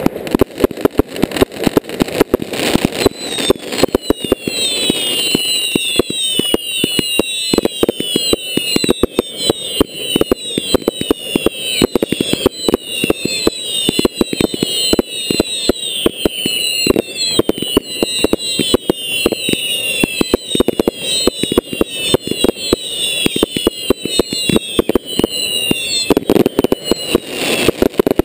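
Fireworks display heard close up: rapid, continuous bangs and cracks from bursting shells. From about three seconds in until near the end, a stream of overlapping falling whistles from whistling fireworks runs over them.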